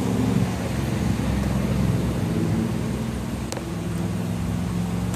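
Vehicle engine running at low speed, with wind noise on the microphone. A short click comes about three and a half seconds in.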